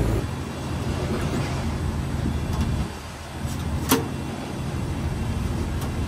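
Steady low mechanical hum of Mitsubishi Electric VRF outdoor air-conditioning units running, with a single sharp knock about four seconds in.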